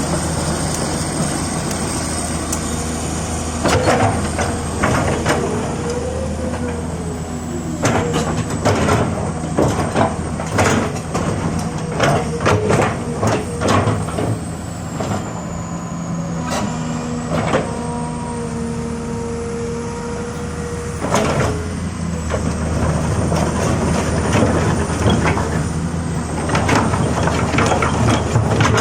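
Komatsu PC200-6 hydraulic excavator running and working: a steady diesel engine hum with a hydraulic whine that comes and goes and bends in pitch, and repeated sharp metal clanks and knocks.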